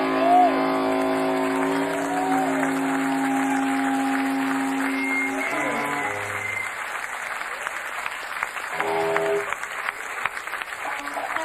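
A live rock band's final chord is held and rings out for about five seconds, then a few short closing notes follow. Audience applause runs underneath and takes over as the music stops.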